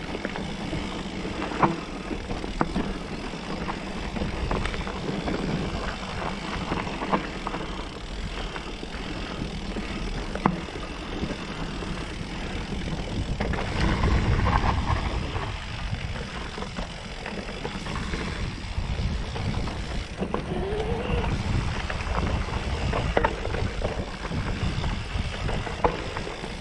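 Mountain bike running down a dirt singletrack trail: steady tyre and wind noise on the action-camera microphone, broken by sharp knocks and rattles from the bike over bumps, a handful of them standing out.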